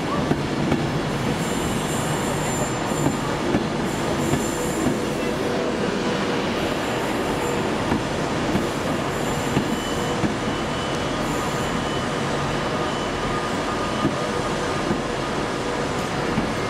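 A train moving slowly through the station, its wheels squealing high-pitched on and off over steady running rumble, with repeated clicks as the wheels cross rail joints.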